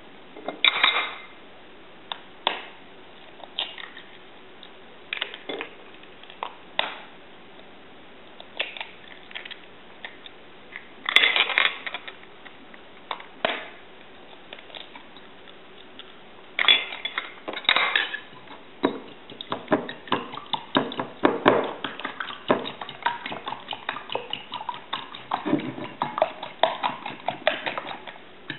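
Eggs tapped and cracked against a ceramic bowl, heard as scattered sharp knocks, then a metal spoon beating the eggs in the ceramic bowl with fast, continuous clinking from about two-thirds of the way through.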